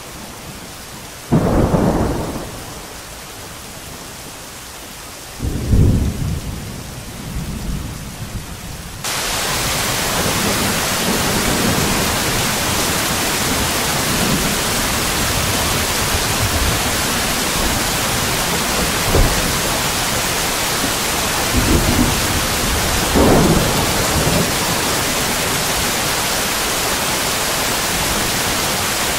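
Rain falling steadily, with two loud claps of thunder rolling away in the first six seconds. About nine seconds in, the rain turns suddenly heavier and hissier, and more low rolls of thunder follow later on.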